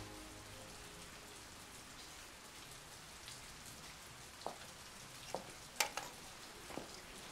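Steady rain, a soft even hiss, with a few light knocks and taps between about four and seven seconds in, the sharpest a little before six seconds.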